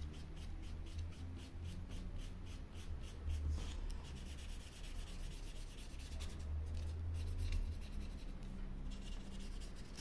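Felt-tip marker scratching in quick back-and-forth strokes as it colours thin wood, over a low steady hum.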